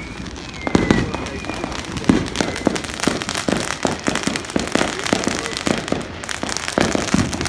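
Fireworks going off in a dense barrage: many sharp pops and bangs in quick, irregular succession, with crackling between them.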